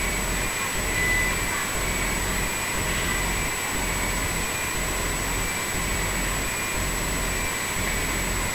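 Steady rushing background noise with a low hum underneath and a faint high whine, unchanging throughout.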